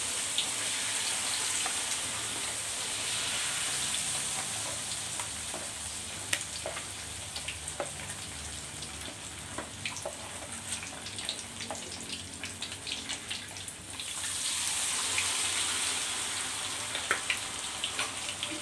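Flour batter deep-frying in hot oil in a wok: a steady sizzle full of sharp crackling pops. The hiss thins in the middle, leaving scattered pops, then swells again about fourteen seconds in.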